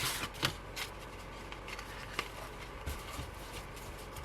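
Photocards and their packaging being handled: soft rustling with a cluster of light clicks in the first second and a few isolated ticks later.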